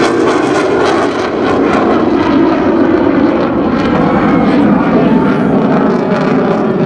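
F/A-18 Hornet's twin jet engines in afterburner, heard as steady, loud jet noise as the jet flies away after a low pass.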